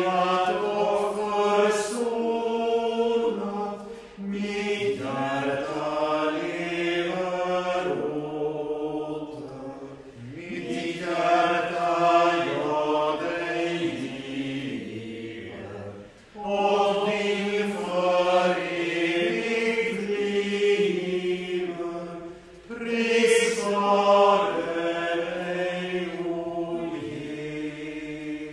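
A hymn sung in long phrases of about six seconds each, with short breaks between the phrases.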